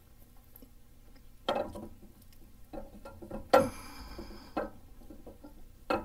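A steel camshaft being worked by hand through the cam bearings of a V8 engine block, its lobes and journals knocking and clinking against the bearings. There are five or so separate sharp knocks; the loudest, about three and a half seconds in, rings briefly.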